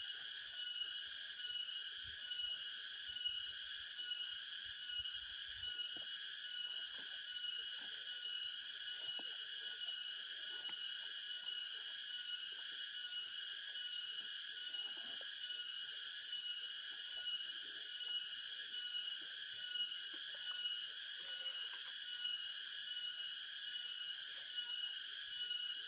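Steady high-pitched insect drone, pulsing evenly about twice a second, with faint rustling and handling sounds beneath it.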